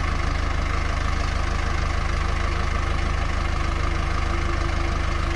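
Mahindra Arjun 555 DI tractor's four-cylinder diesel engine running steadily at a low, even speed, with a fast regular low pulse.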